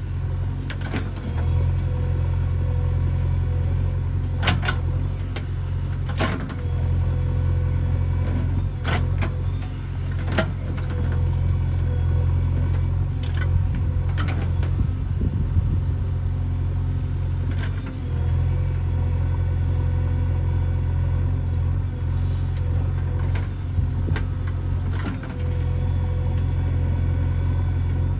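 JCB 3DX backhoe loader's diesel engine running steadily, with a scattering of sharp knocks, most of them in the first half.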